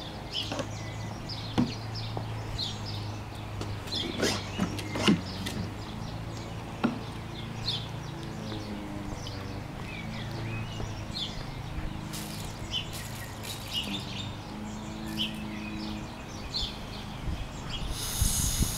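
Birds chirping, short high calls scattered throughout, over a steady low hum, with a few sharp knocks about four to five seconds in.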